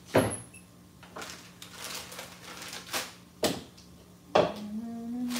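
Kitchen dishes and utensils clattering: four sharp clinks and knocks, the first the loudest, over a steady low hum.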